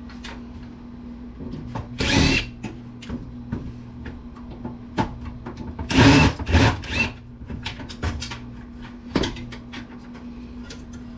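Power drill with a screwdriver bit running in short bursts, about two seconds in and again around six seconds in, on a case screw that isn't loosening. Clicks and knocks from the metal computer case being handled come between the bursts.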